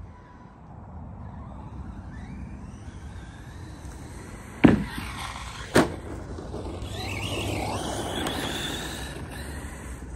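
ARRMA Mojave 4S RC truck's brushless electric motor whining as it drives over dirt and grass, with tyre noise under it. Two sharp knocks about a second apart, a little before halfway, are the loudest sounds. Later the whine dips in pitch and climbs again.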